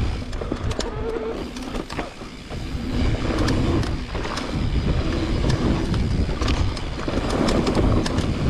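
Mountain bike riding over a dirt trail: wind buffeting the microphone and tyres rumbling over the ground, with frequent sharp rattles and knocks from the bike. The noise eases off briefly about two seconds in.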